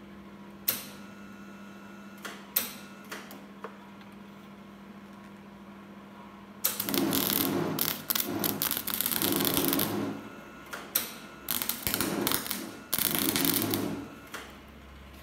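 Welding arc of an old MIG/MAG welder running flux-cored wire without shielding gas, crackling loudly in three bursts: one of about three seconds, then two of about a second each, with a few sharp snaps before and between. The stop-start crackle goes with a wire that keeps sticking, which the welder puts down to too much power on the setting.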